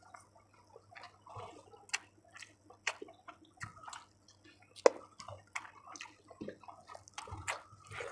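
Close-miked wet eating sounds of chicken curry with rice and potato: irregular smacking, squelching and sharp wet clicks of mouth and food, with one sharper click about five seconds in.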